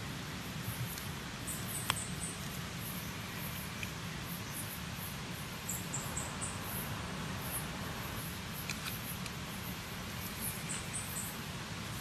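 Night-time forest ambience: clusters of short, very high insect chirps over a steady hiss, with one sharp click about two seconds in.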